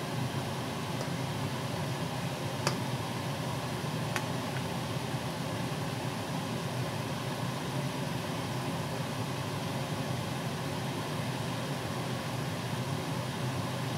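Steady rushing kitchen noise while a pan of vegetables cooks on the stove, with two sharp clicks of the metal ladle against the pan about three and four seconds in.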